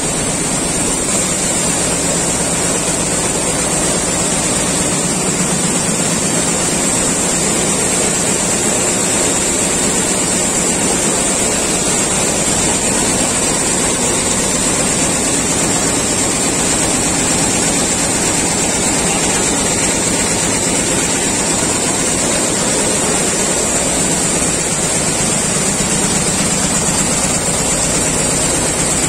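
Richpeace multi-needle shuttle quilting machine running at speed: a loud, steady mechanical clatter from its needle bar stitching, with a steady high hiss over it.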